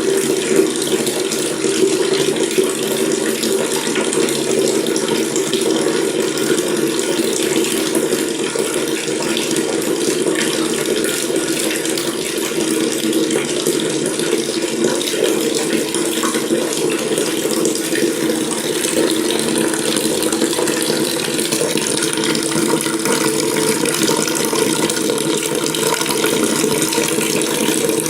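Water running steadily from a tap, a continuous splashing stream with a low, full tone.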